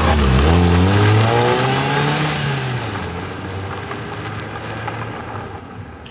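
A car accelerating away: it starts loud and suddenly, the engine revs climb over the first two seconds, then the sound fades steadily as it drives off.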